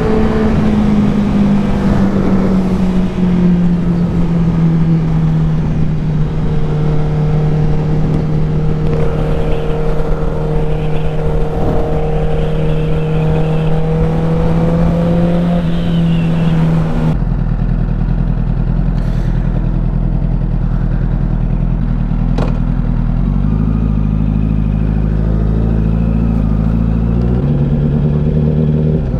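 Honda CBR1000RR's inline-four engine pulling at steady revs under rushing wind noise. A little over halfway the wind noise cuts out suddenly and the engine runs low and steady, its tone stepping down and back up near the end.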